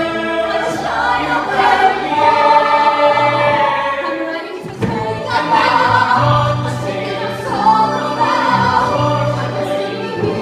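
A group of voices singing together in chorus over a musical accompaniment, holding long notes, with a short break just under five seconds in.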